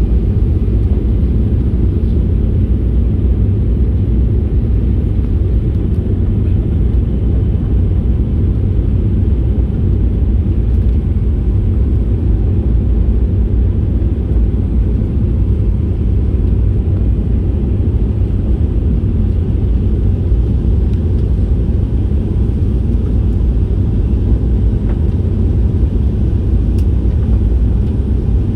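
Airliner cabin noise: a steady low rumble of engines and rushing air heard from inside the passenger cabin.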